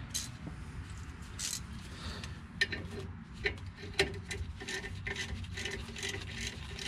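Hand ratchet clicking as a brake caliper bolt is backed out: a few scattered clicks at first, then a fairly even run of about three clicks a second in the second half.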